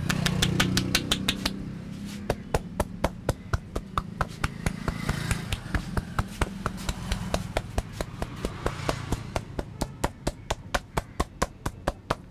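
Massage tapping: the barber's hands strike the body in quick, even slaps, about five to seven a second, with a low hum underneath.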